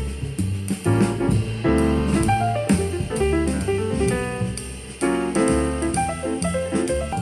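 Jazz music with piano and a drum kit, loud and steady.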